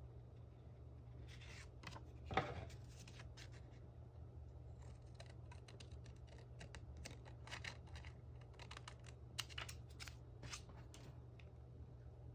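Scissors cutting paper in a series of short snips, with a sharp tap about two seconds in.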